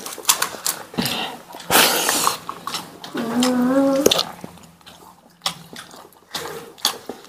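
Eating by hand from steel plates: scattered clicks and small handling noises of fingers working rice against the plates, and chewing. A short hiss-like burst comes about two seconds in, and a held wordless call rising at its end comes about three seconds in.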